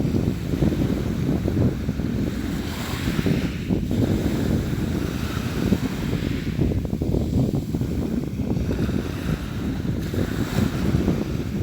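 Sea waves washing and splashing, with a few swells of hissing spray, over a steady low rumble of wind on the microphone.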